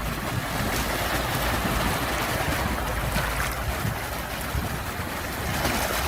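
Sea surf: a steady wash of waves with a low rumble underneath.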